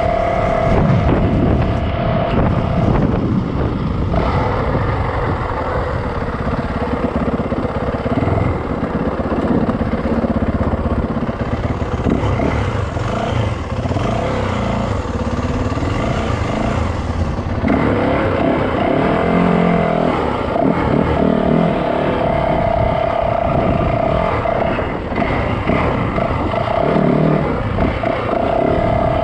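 Yamaha dirt bike engine running as the bike is ridden along a trail, its pitch rising and falling with the throttle.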